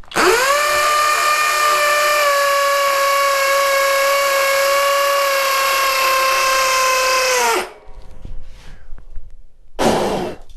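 Flex cordless hammer drill in turbo hammer-drill mode at high speed, boring into a concrete block: a loud, steady, high-pitched whine that sags slightly in pitch over about seven and a half seconds, then stops once the bit is fully seated. A short burst of noise follows near the end.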